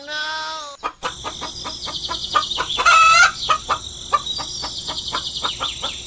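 Chicken clucking in a quick, irregular series of short clucks, with one louder drawn-out call about halfway through.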